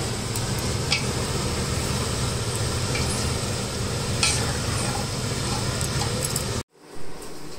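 A spoon stirring chicken curry gravy that is simmering in a pan, thickening after a flour slurry has been added. There are a few light clicks of the spoon on the pan. The sound cuts off abruptly near the end, then comes back quieter.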